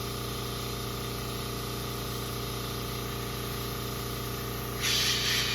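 Small airbrush compressor running with a steady hum; near the end the airbrush starts spraying paint with a loud, even hiss.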